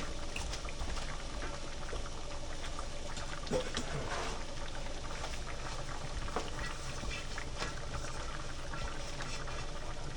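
Food cooking in a pan on the stove, bubbling with a steady run of small pops and crackles.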